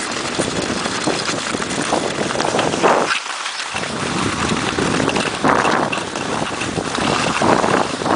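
Wind buffeting the camera's microphone as it moves over snow: a loud, steady rushing noise that drops out briefly about three seconds in, at an edit.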